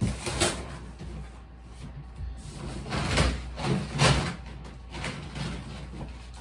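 Rummaging: a few short sliding, scraping noises of things being moved and handled. One comes at the very start, and the loudest cluster comes between about three and four seconds in.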